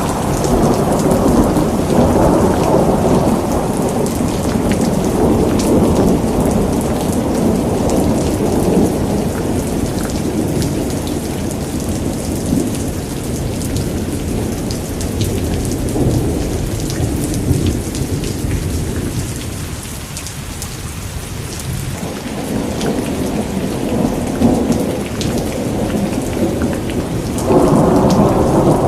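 Heavy rain falling steadily with thunder rumbling low underneath. The rumble eases a little past the middle and swells up again near the end.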